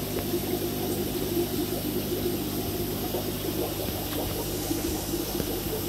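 Aquarium filter pump running steadily, a low motor hum under the sound of water moving and churning.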